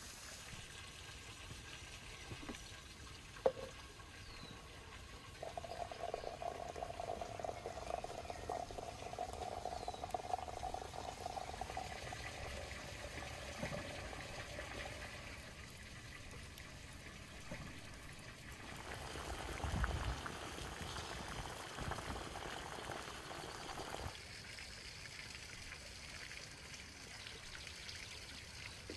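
Water pouring and bubbling in a large metal cooking pot, with one sharp knock about three and a half seconds in.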